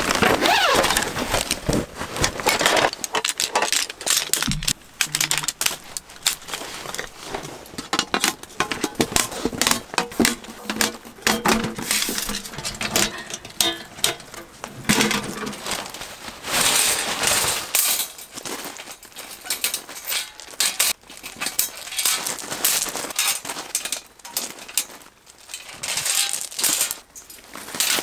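Camping gear being handled and set up: a dense, irregular run of small clicks, rattles and rustles with occasional louder knocks, busiest in the first few seconds.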